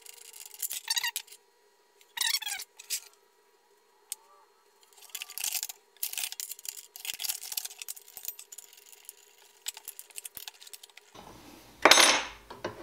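Irregular metallic clinks and rattles from changing a SKIL circular saw's blade by hand: the steel blade, arbor bolt, washer and blade wrench knocking against the saw and being set down on the workbench, with short quiet gaps between.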